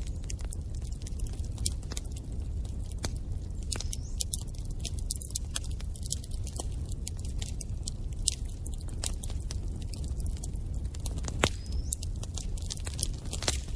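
Wood fire burning in a fireplace: a steady low rumble of the flames with frequent irregular crackles and a few sharper pops.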